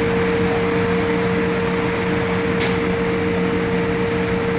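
Steady machine hum with a constant mid-pitched tone and a fainter lower one; a single light click about two and a half seconds in.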